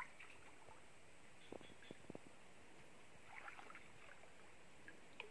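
Near silence: faint water sloshing from wading in a shallow stream and handling a wire-mesh fish trap, with a few faint clicks about one and a half to two seconds in.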